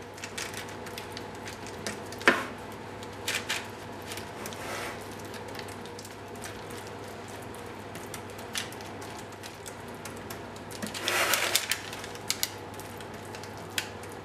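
Metal spoon spreading minced-meat topping over thin raw dough on a parchment-lined baking tray: soft scrapes and dabs, a sharp tap about two seconds in, and a brief run of quick scrapes and clicks near the end, over a faint steady hum.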